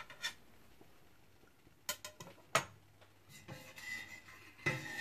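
A few sharp clicks about two seconds in, then a metal ladle stirring and clinking against a stainless steel pot of rice-flour batter, with a light metallic ring.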